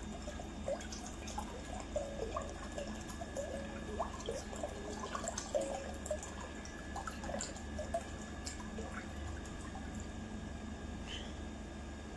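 Water pouring from a plastic bottle's spout into a glass bowl already holding water: a thin stream trickling in with many small plinks and gurgles, which thin out near the end.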